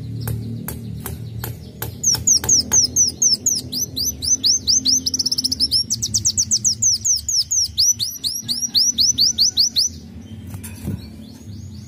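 Sunbird singing: a few sharp ticks, then a fast run of high, sharply falling notes at about six a second, quickening briefly in the middle. The song stops shortly before the end.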